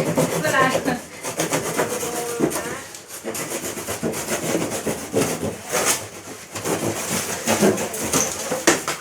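Irregular scraping and rubbing of packaging being handled and pulled off during the refrigerator unboxing, with voices in the background.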